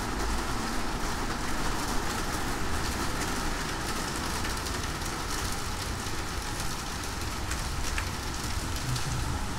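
Honda Pop 110i's small single-cylinder engine running under steady road and wind rumble, riding in the rain.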